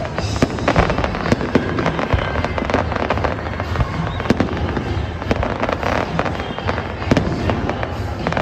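Fireworks display: a rapid, unbroken barrage of bangs and crackles, several bursts a second.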